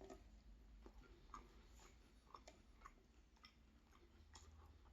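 Near silence with faint, scattered soft clicks of someone chewing a mouthful of meat pie.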